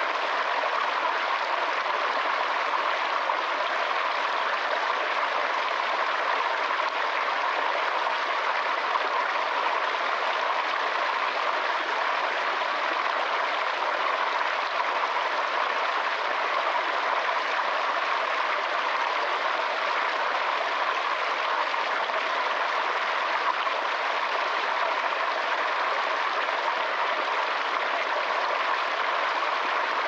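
Small rocky stream running over stones: a steady, even rush and splash of flowing water.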